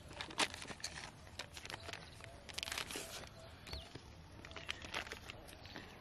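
Crinkling and tearing of a small paper packet being opened by hand. There are scattered light clicks, a sharp crackle about half a second in, and a longer rustle around two and a half to three seconds in.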